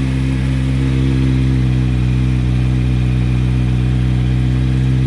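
2021 Kawasaki Z900's inline-four engine idling steadily just after a cold start. The exhaust is the stock header with an Akrapovic slip-on muffler.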